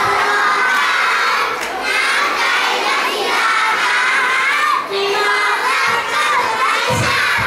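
A group of young children singing together, one of them into a microphone.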